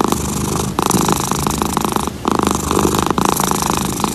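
Dilute calico cat purring close up, a rough rhythmic rattle that breaks briefly about once a second with each breath in and out.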